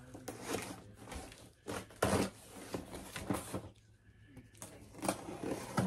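Cardboard shipping box being handled and opened by hand: a string of short rustles and scrapes, the loudest about two seconds in.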